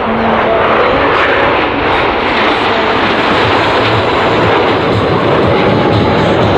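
Nine Canadair CT-114 Tutor jets flying over in close formation: a loud, steady rush of jet-engine noise.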